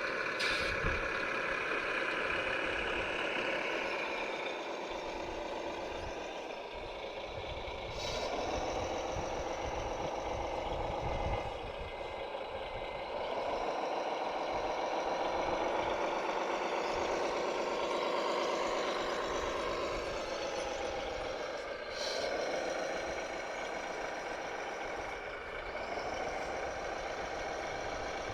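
Electric motors and gearboxes of radio-controlled construction models whining, the pitch rising as they drive off and falling as they stop, several times over, with a few sharp clicks.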